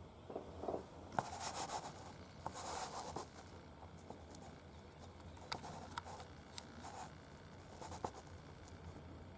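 Faint scratching and rustling handling noises over the first three seconds or so, followed by a scatter of small sharp clicks and taps.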